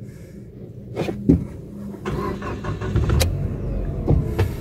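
Mitsubishi 4G64 2.4-litre four-cylinder gasoline engine being started, heard from inside the cabin: it catches about two seconds in and runs at a raised idle just after starting.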